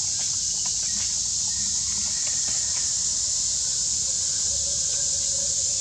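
Steady, high-pitched drone of a forest insect chorus. A faint long held note comes in about halfway through.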